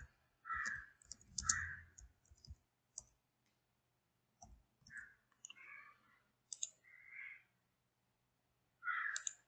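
Computer keyboard keys tapped a few at a time with short pauses between, as a short label is typed, mixed with a few sharp single clicks.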